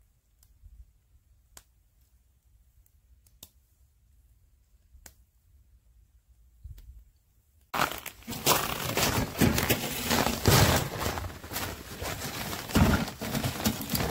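Sparse faint ticks of a small campfire crackling. About eight seconds in, loud crunching of footsteps in snow close by, with a sled on metal runners scraping over the snow as it is dragged along.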